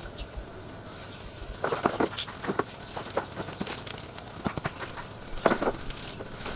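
Handling noises: a scatter of sharp clicks and knocks with some rustling, bunched in two clusters about two and five seconds in.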